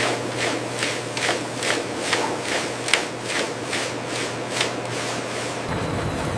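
Food-processing machinery running, with repeated short swishing, rubbing strokes about two or three a second over a steady hum. Near the end it gives way to a deeper, steady mechanical rumble.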